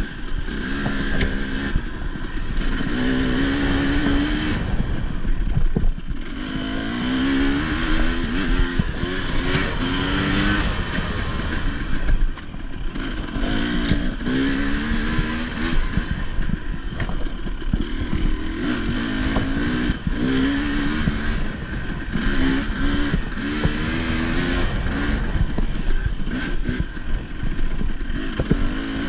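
Enduro dirt bike engine revving up and falling back again and again, the pitch climbing and dropping every second or two as the throttle is worked through a race test section. Short knocks and rattles run throughout.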